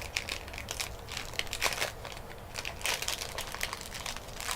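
Plastic snack wrapper of a cranberry almond granola snack crinkling and rustling in irregular bursts as it is handled and opened.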